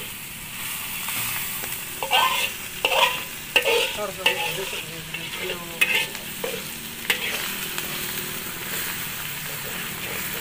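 Chopped shallots, galangal and spices frying in oil in a metal wok, a steady sizzle, with a slotted metal spatula scraping and knocking against the wok several times in the first seven seconds or so.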